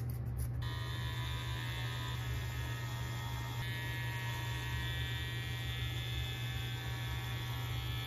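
Corded electric carving clipper buzzing steadily with a low hum as it trims the long yarn pile of a freshly tufted rug; its sound gets brighter about half a second in.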